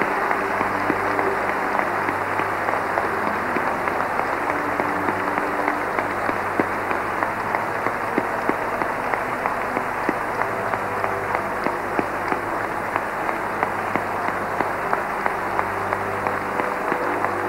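Congregation applauding: many hands clapping in a dense, steady patter, with single sharper claps standing out. Low held tones sound faintly beneath it near the start and again near the end.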